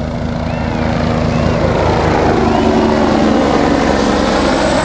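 Twin-turbine UH-72 Lakota military helicopter flying low past: a steady rotor beat under a high turbine whine. It grows louder to a peak about three to four seconds in, and the whine and engine tones drop slightly in pitch as it goes by.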